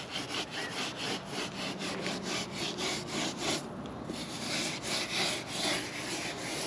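Damp sponge rubbed back and forth over fresh mortar, a gritty rasping in quick, even strokes, smoothing the mortar to a finish.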